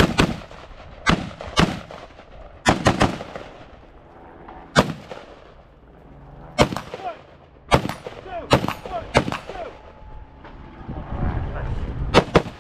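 Rifle gunshots fired one at a time at an uneven pace, about a dozen in all, some in quick pairs, as the shooter moves through a course of targets.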